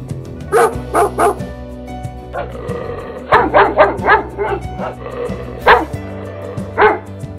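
A dog barking in short bursts: three quick barks early, a run of several barks in the middle, then two single barks, over steady background music.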